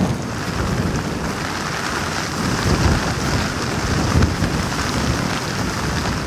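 Wind and rain on an outdoor microphone: a loud, gusting low rumble with a steady hiss of rain over it, swelling a few times.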